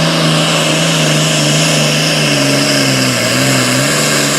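Super Farm class pulling tractor's diesel engine running loud at high, steady revs under load. Its pitch dips briefly about three seconds in, then recovers.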